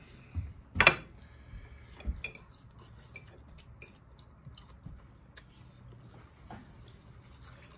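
A metal fork clinks sharply against a plate about a second in, ringing briefly, followed by a few fainter clicks and small sounds of eating.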